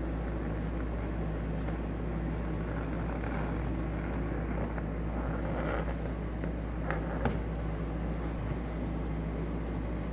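Steady low hum, with faint rustling of a leather seat cover and a few light clicks as its plastic latches are pushed in and turned, the clicks about two-thirds of the way through.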